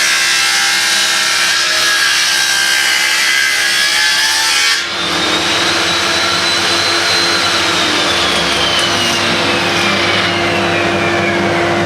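Electric power saw cutting 45-degree miters in pallet boards, running loudly and steadily, with a short dip and a change in its sound about five seconds in.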